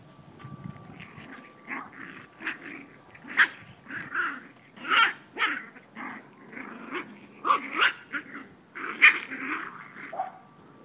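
Puppies play-fighting, barking and yapping at each other in a rapid run of short, sharp calls that starts about two seconds in.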